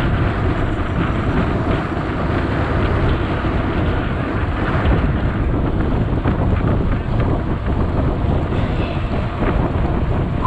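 Steady wind buffeting on the camera's microphone while riding a bicycle at speed on asphalt, with faint scattered ticks over the top.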